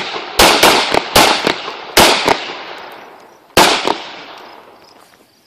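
Handguns firing a rapid, uneven string of shots from several shooters on the line, about seven in all. They come in pairs at about half a second, one and two seconds in, with a last shot about three and a half seconds in. Each shot leaves a long echoing decay.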